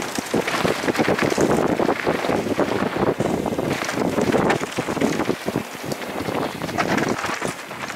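Wind buffeting the microphone of a camera on a downhill mountain bike at speed, mixed with knobby tyres rolling over dirt, leaves and loose stones. Frequent quick rattles and knocks from the bike over the rough ground.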